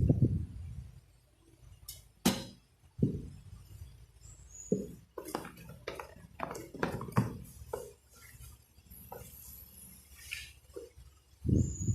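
A feeding bottle and formula-making utensils clinking and knocking as they are handled and set down on a table: a run of short, irregular taps and clicks.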